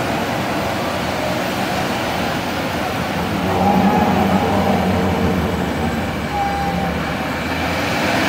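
Vehicle engine running on a rough dirt road, a steady noisy rumble, with people's voices calling out briefly near the middle.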